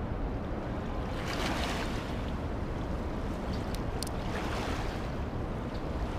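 Steady rushing outdoor noise of wind and water with low rumble, swelling twice, with a few light clicks about four seconds in.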